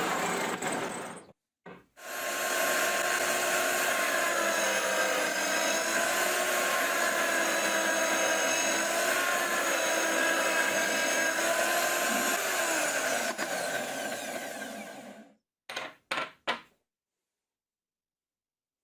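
Drill press running and boring a hole through a plywood disc, the motor's pitch wavering under load; it stops about fifteen seconds in, followed by a few brief sounds.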